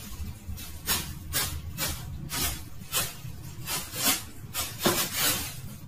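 Cat pawing at crumpled paper, the paper crinkling in short rustles about twice a second.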